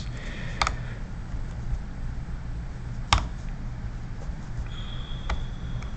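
Three sharp clicks from someone working the computer, about two and a half seconds apart, over a low steady hum. A faint, high, steady tone comes in near the end.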